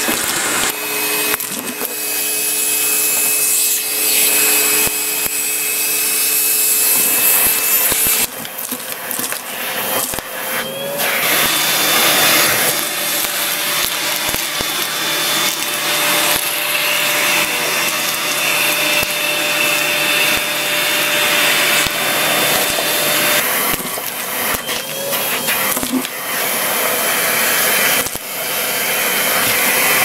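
Numatic Henry canister vacuum cleaner running at full suction, its hose picking LEGO bricks off a carpet, the bricks clattering up the hose in scattered clicks. The note of the motor and suction shifts about eight seconds in and settles to a new pitch a few seconds later.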